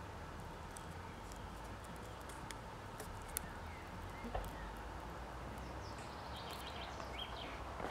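Outdoor garden ambience: a steady low rumble with a few soft clicks of grafting tape being handled and wrapped around a graft. A bird chirps several times near the end.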